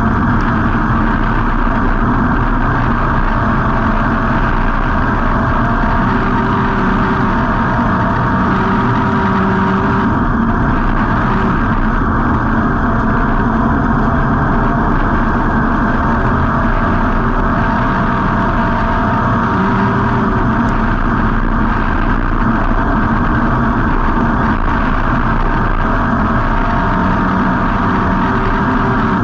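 Street stock race car's V8 engine running loud and steady, heard from an on-board camera mounted in the car, its pitch drifting only slightly up and down.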